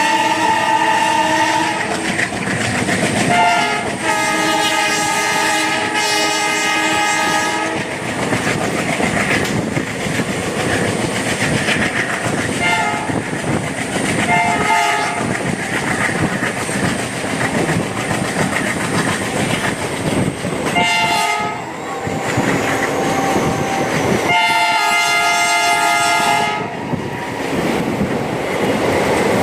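ALCO WDP-3A diesel locomotive sounding its multi-tone horn in repeated blasts: long honks with short breaks for the first several seconds, short toots about a third and halfway through, then a longer honk near the end. Between the blasts the train rolls by with wheels clacking over rail joints.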